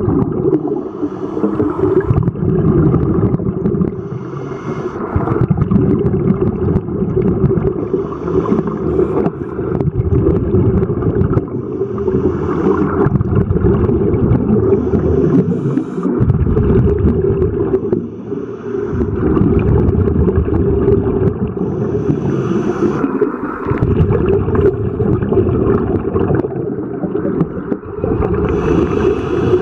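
Scuba diver's breathing through a regulator, heard underwater: a short hiss on each inhale and a gurgling gush of exhaled bubbles, repeating every few seconds.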